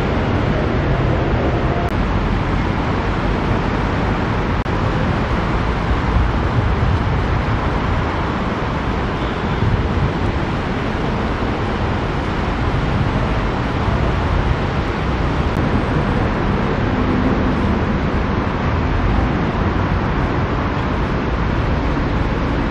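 Steady road traffic noise with a heavy low rumble and no distinct single events.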